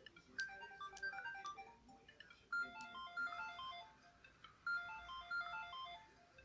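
Siemens S55 mobile phone playing a ringtone: an electronic tune of short notes, several sounding at once, whose phrase repeats about every two seconds.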